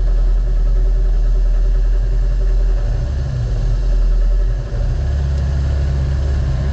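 Naturally aspirated race UTV engine running with a strong, steady low drone. About two-thirds of the way through, the level dips briefly and the low rumble shifts.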